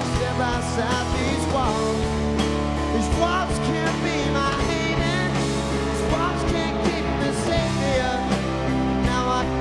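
A live rock band playing, with guitar, and a male lead voice singing over it.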